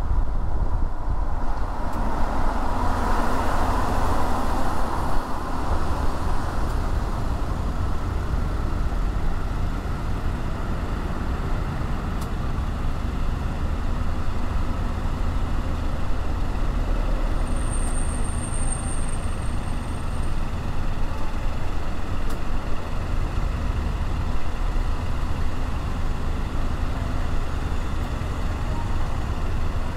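Road noise from a car driving in city traffic: a steady low rumble. A louder swell of noise lasts a few seconds near the start, and a thin high whine lasts about three seconds around the middle.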